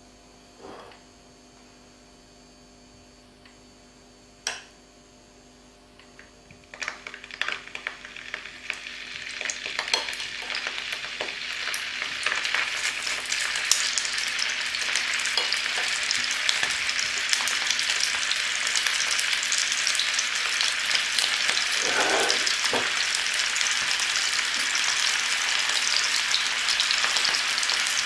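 Sausages laid into hot oil in a nonstick frying pan: the oil starts sizzling about seven seconds in and builds to a steady, loud sizzle as more sausages go in.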